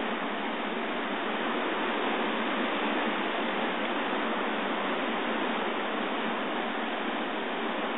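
Surf breaking and washing over a rocky shoreline at high tide, a steady rushing hiss with no single crash standing out.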